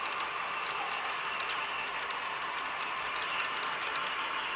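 Model railroad freight cars rolling past on the track: a steady rolling whir with many light, irregular clicks from the metal wheels over the rail joints.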